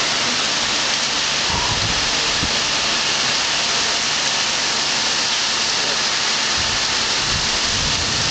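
Heavy thunderstorm rain pouring steadily with gusting wind, with low rumbles about a second and a half in and again near the end. Underneath is a faint steady hum from a nearby air-conditioning unit.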